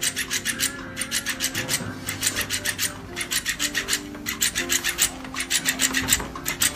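Fast rasping scratches in bursts, about ten a second: a cat clawing and kicking at a toy fish, over background music.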